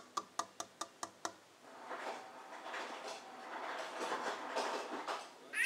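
A child shuffling about inside a closed wooden kitchen cabinet: a quick run of light clicks and taps, then a few seconds of soft rustling and scuffling, with a short high-pitched voice squeal right at the end.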